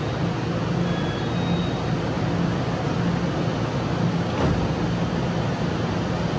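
EMU500 electric multiple unit standing at the platform with its onboard equipment running: a steady noise under a low hum that swells and fades about once a second. A single light click comes about four seconds in.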